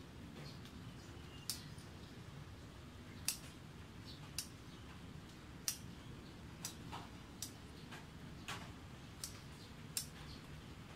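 Scissors snipping through zinnia stems: about nine sharp, separate clicks at uneven intervals, over faint steady background noise.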